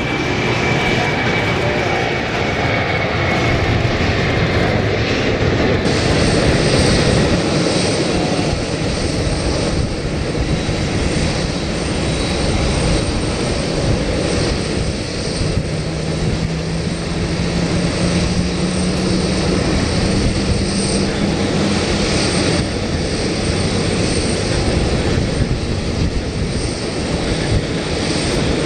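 Jet engine noise from a taxiing Boeing 747-400 with GE CF6-80C2 turbofans: a loud, steady rushing with a thin high whine, and a low tone that rises slowly partway through.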